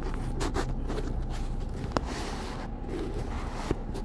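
Steady low hum of an idling car heard from inside the cabin, with a few sharp clicks and light rubbing from handling in the car.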